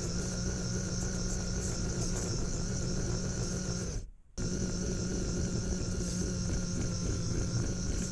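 Micro RC truck's small electric motor and gears running with a steady whine and hum. The sound drops out for a moment about halfway through, then carries on unchanged.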